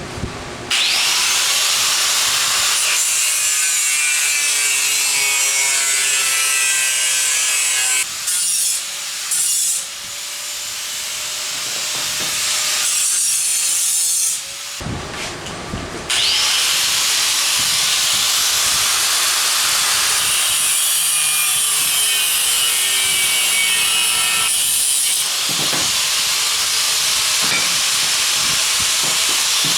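Power cutting wheel cutting metal: a loud, steady, hissing grind, broken twice briefly (about eight seconds in and about fifteen seconds in) where the wheel's motor whine is heard on its own before the cut resumes.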